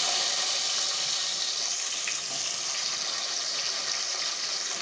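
Sliced onion sizzling in hot oil in a steel pot, just added to whole spices and dried red chillies: a steady frying hiss that eases a little as it goes on.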